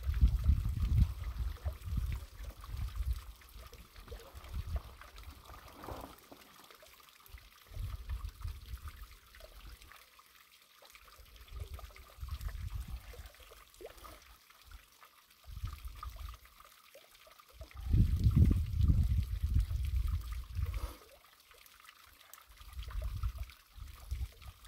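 Wind gusting over the microphone in irregular low rumbles that come and go, the longest and loudest gust about three-quarters of the way through.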